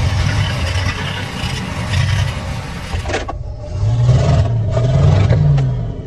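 Mercedes G-Wagon engine running under load in mud and water, under a heavy rushing noise that cuts off abruptly about three seconds in; the engine then revs up and down several times.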